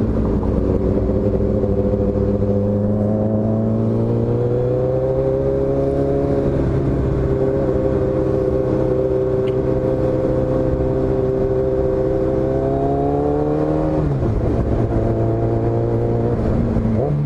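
Sport motorcycle engine heard from the rider's own seat, cruising at steady throttle. Its pitch climbs slightly twice, drops suddenly about fourteen seconds in as the throttle is closed, then rises again near the end.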